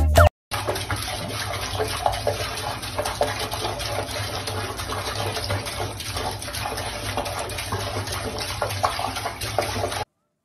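Water running from a chrome kitchen tap and splashing into the sink, a steady rush with small splatters. It stops suddenly near the end.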